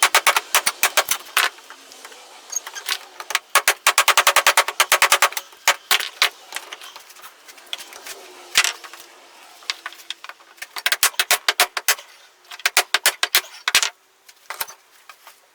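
Runs of rapid, sharp clicks and light rattling, with pauses between them; the longest fast run comes about four seconds in.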